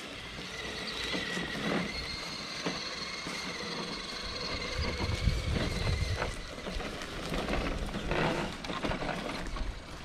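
Radio-controlled crawler truck's small electric motor and gears whining steadily as it creeps over a dirt trail, with a few knocks from the tyres and chassis on the ground. A low rumble comes in about halfway through.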